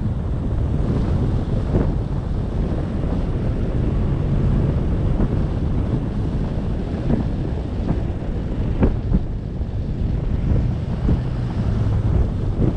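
Wind buffeting the microphone of a camera on the bonnet of a vehicle driving along a snow-covered road, over a steady low rumble, with a few short sharp knocks.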